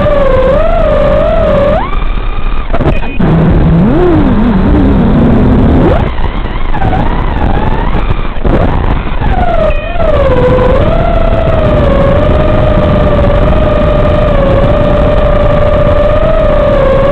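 Racing quadcopter's Emax RS2205 2600kv brushless motors, heard over the FPV video link's audio as a whine that wavers up and down in pitch with the throttle. The whine falls away to a lower, rising tone from about two to six seconds in, dips briefly again near ten seconds, then holds fairly steady with small wobbles.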